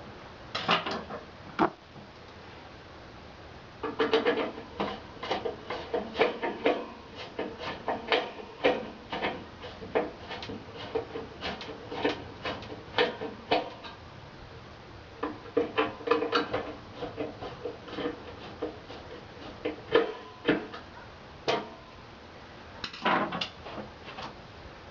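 Heater parts being fitted into the wall during installation: bursts of clicking, knocking and scraping of the housing and grille being handled and pushed into place, with short pauses between.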